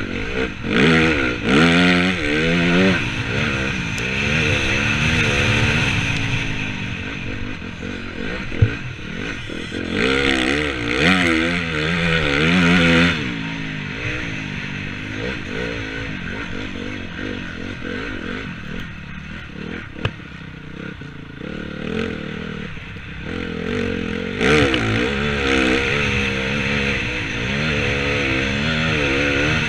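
Motocross bike engine heard close-up from on the bike, revving hard and easing off over and over as it is ridden round the track. Louder full-throttle pulls come about a second in, around ten seconds in and again near the end, with lower running in between and a few sharp knocks.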